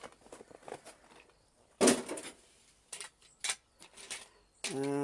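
Rummaging through a box of paint tubes and painting materials: light clicks and rattles, with one loud knock about two seconds in. Near the end a man's short hum.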